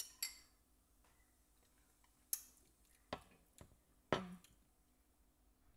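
About half a dozen light, scattered clicks and taps of a fork against the chopping board, with quiet gaps between them.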